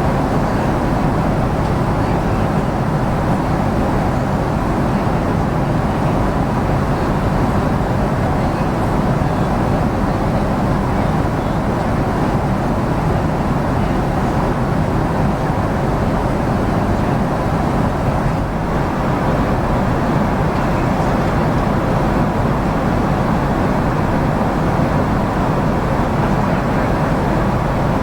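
Steady roar of engine and airflow noise inside the cabin of a Boeing 767-400ER in flight, with a faint steady hum running through it.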